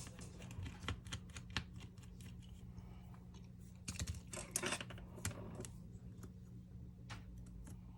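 Irregular light clicks and taps of small hand tools and parts being handled during a smartphone repair, with a quick flurry of them about four to five seconds in, over a faint steady hum.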